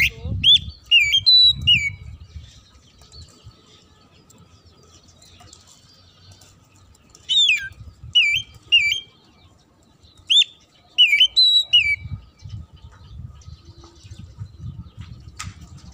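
Oriental magpie-robin (kacer) singing: three short phrases of loud, clear whistled notes that slide up and down, with pauses of several seconds between them.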